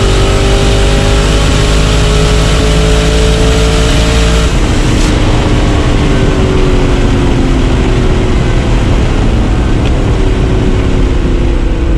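A performance car's engine running hard at high revs, its pitch climbing steadily for about four and a half seconds, then changing abruptly and falling away slowly.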